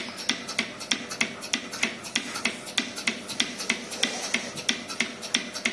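Milking machine pulsator clicking and hissing in a fast, even rhythm, several pulses a second, as the teat cups alternate between suction and rest.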